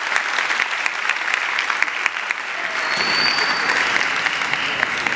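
Audience applauding, swelling a little past the middle, with one brief high whistle about three seconds in.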